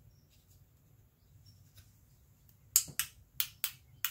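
A loaded paintbrush tapped against the handle of a second brush, giving about five sharp clicks in the last second and a half, roughly three a second, as watery paint is flicked off the bristles to spatter stars.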